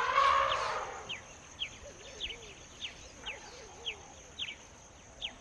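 Bird calling with short, high, falling chirps about twice a second over a steady high hiss. A louder, noisy sound fills the first second.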